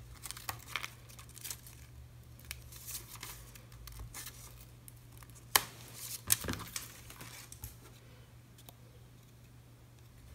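Scissors snipping into a paper banner, then paper rustling and crinkling as it is handled, with two sharp clicks a little past halfway.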